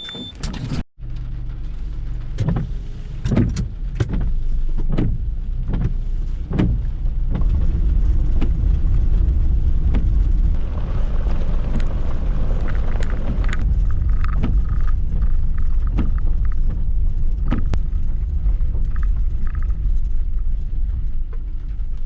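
Car driving, a steady low road and engine rumble with a series of knocks and rattles over the first few seconds.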